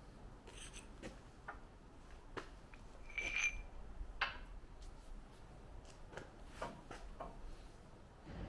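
Faint scattered clicks, light knocks and rubbing, with a brief high squeak about three seconds in and a sharper knock about a second later.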